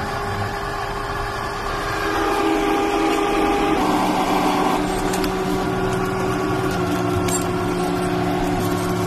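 Steady machine hum made of several held tones, which shifts abruptly about four seconds in.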